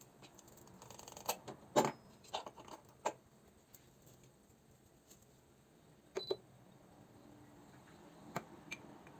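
Scattered light clicks and knocks of small objects being handled, loudest about two seconds in, with a double click around six seconds and two more near the end.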